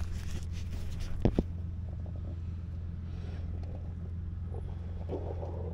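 4x4 truck engine idling steadily, a low even hum, with two sharp knocks about a second in.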